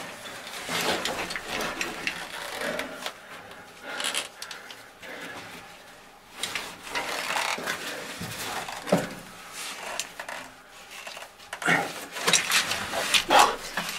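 Caving gear on a rope climb: metal ascender and carabiners clinking and the caver's suit and gear scraping against the rock, in irregular bursts, with a few sharper knocks near the end.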